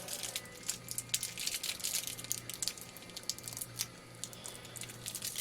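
Faint crinkling and small clicks of a plastic blister pack of coin-cell batteries being picked at by hand, the plastic not coming off, over a low steady hum.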